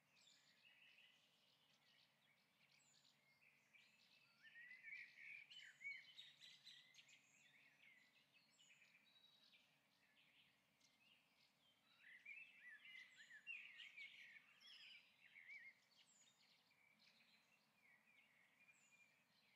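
Faint bird song: quick twittering, chirping calls that come thicker in two bouts, about four seconds in and again about twelve seconds in, over a faint steady low hum.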